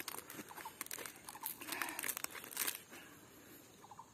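Fresh banana leaf crinkling and rustling as it is folded by hand into a packet, a run of small crackles that dies away about three seconds in.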